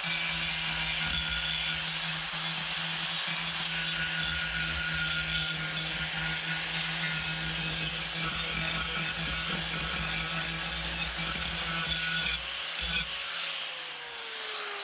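Angle grinder with a sanding disc running at a steady pitch, buffing the chainsaw fuzz off a carved wooden sign. It is switched off about twelve seconds in, and its motor spins down with a falling whine near the end.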